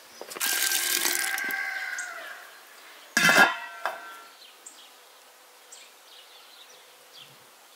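A large stainless steel stockpot set down and shifted on a stone stove, the metal ringing for about two seconds, then its stainless lid clanging down onto the pot about three seconds in, with a short ring.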